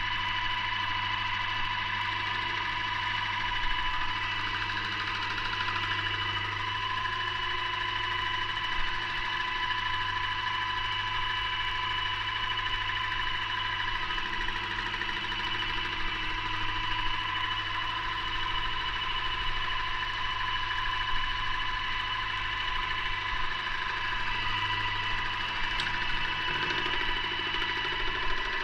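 Paint sprayer running steadily: a continuous whine with a low hum underneath.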